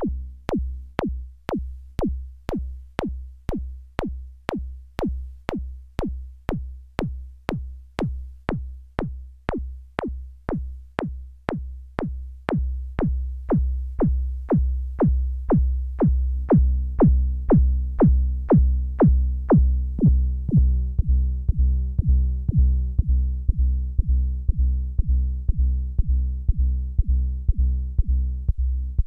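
Electronic jam on a Behringer Neutron analog synthesizer over a drum-machine-style kick. A punchy kick with a falling pitch pulses about twice a second over deep bass. About twelve seconds in, a sustained, harmonically rich synth tone joins and the whole gets louder.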